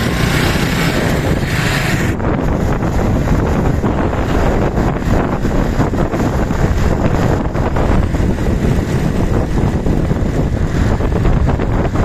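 Loud wind buffeting on the microphone while riding on a moving motorcycle, with the engine and road rumble running underneath; the high hiss eases about two seconds in.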